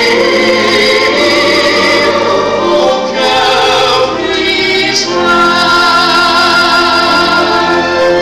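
Church choir singing an Easter cantata in full voice, accompanied by violins and cello, holding sustained chords that change a few times.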